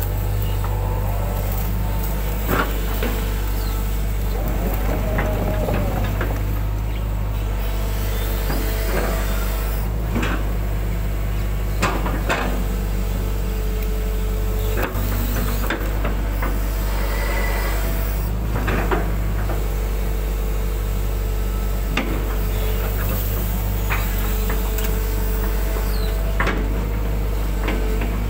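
Hydraulic excavator's diesel engine running steadily with a low drone, heard from the cab, under a hydraulic whine that rises and falls as the boom and bucket move. Occasional knocks and clanks come as the bucket scoops and spreads mud while cleaning a ditch.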